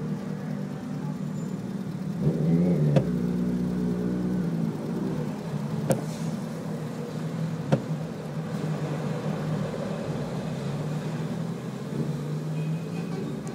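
Motorcycle engines idling in a queue, one revving up louder about two seconds in, heard from inside a car's cabin. Two sharp clicks near the middle.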